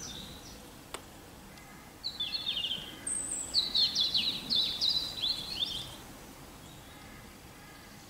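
Songbird singing outdoors: two high-pitched phrases of quick falling notes, the first about two seconds in and a longer one from about three and a half to six seconds, over faint outdoor background noise.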